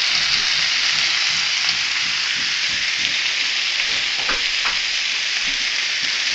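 Chicken pinchos (skewers) sizzling steadily on a hot grill, a dense crackling hiss of fat and juices on the heat.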